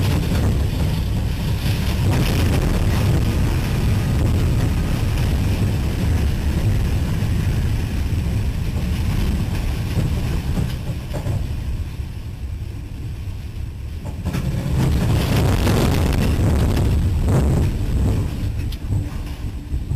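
Loud, continuous rumble of a train on the move, with wind buffeting a camera mounted on the front of the locomotive. It swells louder about fifteen seconds in.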